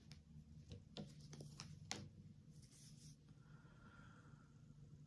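Near silence: faint room tone with a low hum, a few soft clicks about a second or two in, and a brief faint rustle.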